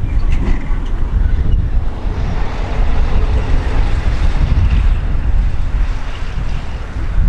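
Jet engines of a Boeing 787 airliner climbing after takeoff, a steady roar that swells a couple of seconds in, mixed with heavy wind buffeting on the microphone.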